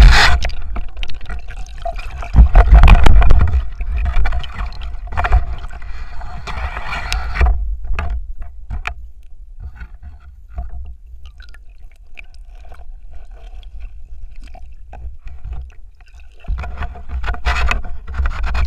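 Muffled underwater noise of water churning around a speargun-mounted camera, with scattered knocks and clicks from the diver handling the speargun and a caught fish. It is loud at first, drops to a quieter stretch of faint clicks in the middle, and swells again near the end.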